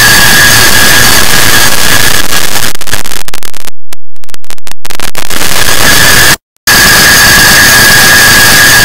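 Clock-tick sounds stacked and sped up so far that they merge into a very loud, continuous harsh noise with a steady high tone through it. Around the middle it stutters with rapid brief dropouts, and it cuts out completely for a split second about six and a half seconds in.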